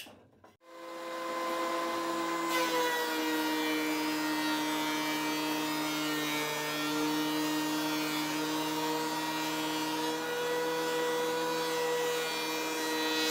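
Benchtop thickness planer running with its dust collection, a steady motor whine that starts about half a second in. From about two and a half seconds a rushing hiss joins it as the knives cut a 2x4 fed through to flatten its twist.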